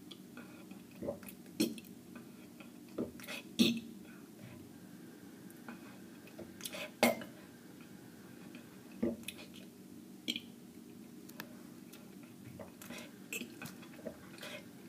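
A person burping the letters of the alphabet: about ten short burps, one at a time, with irregular pauses of up to about two seconds between them.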